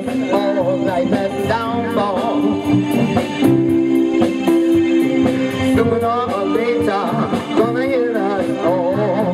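Live band playing a slow song through a PA: a singer's vocal over electric guitar, keyboard chords and a drum kit.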